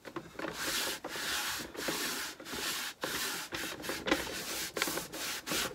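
Cloth rag rubbing back and forth over a waxed, crackle-painted wooden board in repeated strokes, about two a second, wiping off the excess dark wax.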